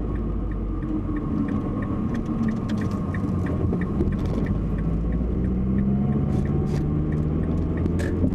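Car driving heard from inside the cabin: the 2007 Mazdaspeed3's 2.3-litre turbo engine and road rumble, with a steady light ticking and a few short knocks in the later seconds. The knocking is the loose-sounding front suspension rattle, which the mechanic places at the front right; it is later traced to hardened, worn front sway bar bushings.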